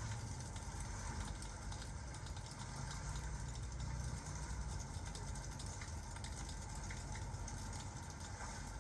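Crackling fireplace and rain ambience: a steady low rumble and hiss with scattered faint crackles.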